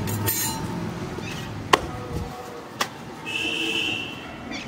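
Steel kitchen utensils clinking and knocking: two sharp metallic clicks, the louder one just under two seconds in and another near three seconds. A brief high whistle-like tone follows shortly after.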